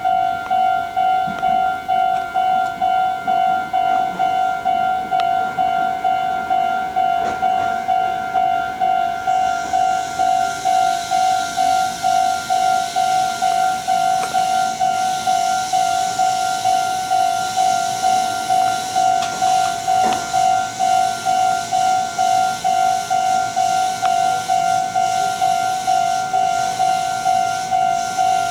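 Japanese level-crossing warning bell ringing steadily at about two strokes a second. From about ten seconds in, a Meitetsu 4000 series electric train's rushing rail noise joins it as the express approaches and passes over the crossing.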